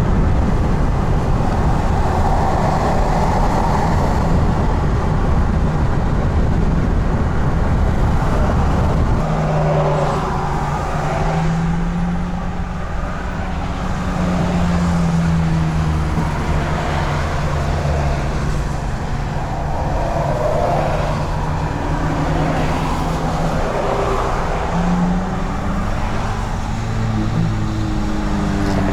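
A motor vehicle driving. For the first nine seconds there is a dense low rumble of road noise, then a steady low engine drone comes in, its pitch shifting slightly and rising near the end.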